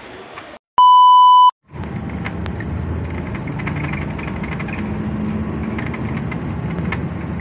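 A loud, steady electronic beep lasting under a second, about a second in, followed by the even noise of road traffic on a city street with cars passing.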